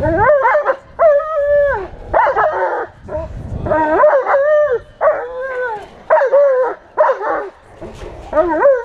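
German Shepherd-type dog barking and yelping in a rapid series of high-pitched calls, some clipped and some drawn out, aroused by a man approaching it in guard-dog protection training.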